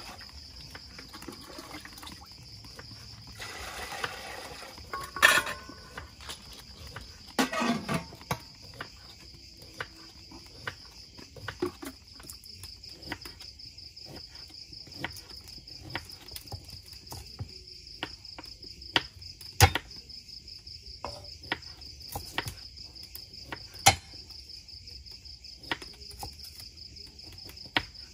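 Crickets chirring steadily, with irregular sharp knocks of a cleaver chopping chicken on a wooden chopping block and a knife cutting ginger on a board.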